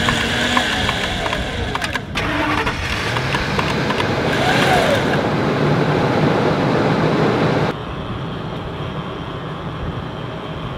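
Pickup truck engine running steadily, kept on to give the winch full battery power.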